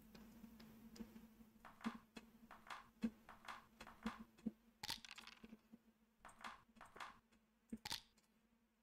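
Near silence: room tone with a faint steady hum and about a dozen faint, irregular small clicks.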